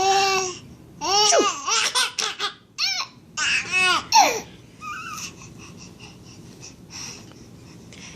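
A baby about seven and a half months old laughing in a string of high-pitched squeals and giggles for about four seconds, then trailing off into fainter babbling.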